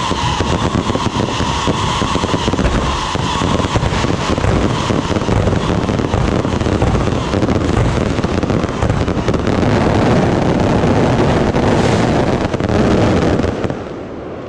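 Fireworks barrage: rising rockets and aerial shells bursting in a continuous run of rapid bangs and crackling, which drops away shortly before the end.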